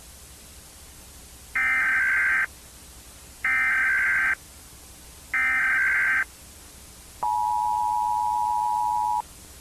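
Emergency Alert System tones: three short bursts of SAME header data, each just under a second with brief gaps between, then about seven seconds in a steady two-tone attention signal lasting about two seconds.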